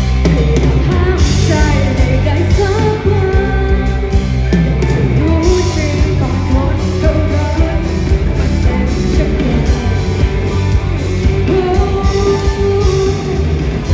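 Rock band playing live: a singer's voice carries the melody over electric guitar, bass and drums, at a steady loud level.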